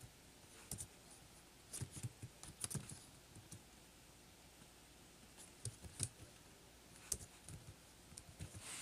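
Faint, scattered keystrokes on a computer keyboard: about a dozen single taps with uneven pauses between them.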